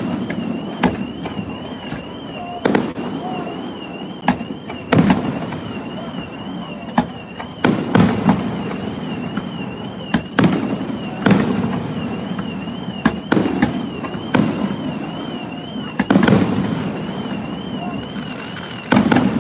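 Fireworks display: aerial shells bursting in sharp booms at irregular intervals, roughly one a second, each trailing off. A high warbling tone carries on behind them.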